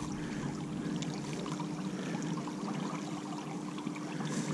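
Steady rush and trickle of river water flowing past the canoe, with a faint steady hum underneath.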